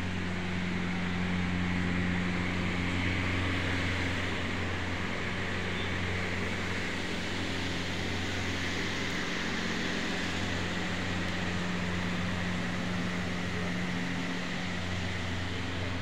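Steady mechanical hum with a low drone, unchanging throughout.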